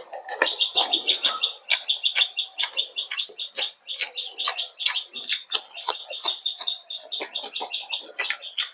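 Small birds chirping continuously in quick short high notes, several a second, with the soft squelch of rice being mixed by hand underneath.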